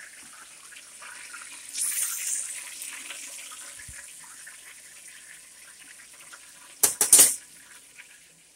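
Breaded chicken frying in hot oil: a steady sizzling hiss that swells loudly about two seconds in. Near the end comes a quick clatter of several sharp knocks, the loudest sound.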